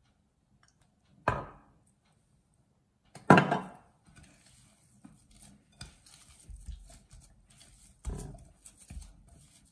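Hands kneading soft besan dough in a glass bowl: soft squishing and slapping of the dough with small clicks of the bowl. Sharp knocks stand out about one second in, about three seconds in (the loudest) and again near the end.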